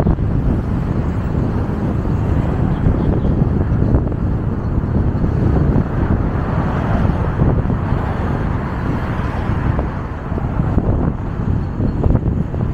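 Wind rumbling on the microphone of a moving bicycle, over steady city street traffic noise; the hiss grows stronger for a few seconds in the middle.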